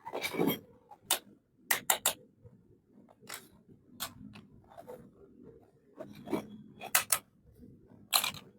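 Pieces of a miniature Hello Kitty toy kitchen set being handled: a string of irregular light clicks and taps as small parts are picked up and set down.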